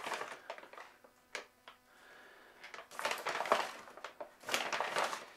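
Protein powder being scooped and tipped into a mixing bowl: scraping and rustling in three short bursts, with a couple of light knocks in between.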